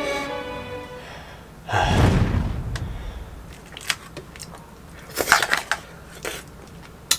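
Background music fading out, then a sudden low rumbling swell about two seconds in that dies away. After that, scattered clicks and scrapes of a metal fork in an aluminium foil tray of spaghetti, with the mouth sounds of eating.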